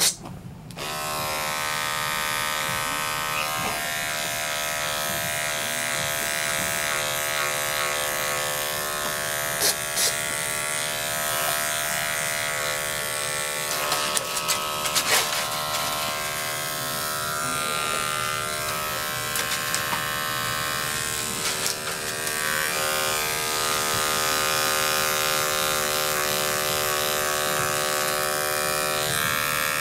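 Corded electric dog-grooming clippers switched on about a second in, then running with a steady buzz as they cut through a dog's coat. A few light clicks sound over it.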